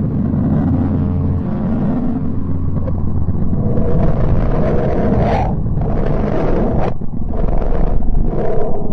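Sonified space radio recording, presented as Mercury's radio waves converted to audible sound: a deep, eerie droning rumble with a steady low hum that drops out about a second and a half in. From about the middle, hissing swells come and go, each cutting off abruptly, four times.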